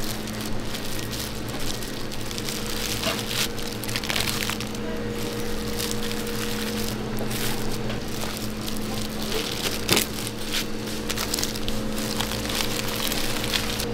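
Plastic-gloved hands working glass noodles and dried seaweed sheets on a stainless steel tray: irregular crackling and rustling of gloves and seaweed, with one sharper click about ten seconds in. A steady low hum runs underneath.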